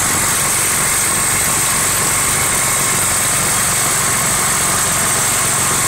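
Single-cylinder lawn mower engine running a homemade outboard motor, holding a steady speed.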